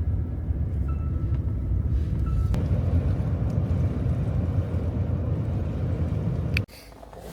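Steady low road and engine rumble inside a moving car's cabin, with a short clear tone repeating about once a second for the first couple of seconds. The rumble cuts off abruptly near the end.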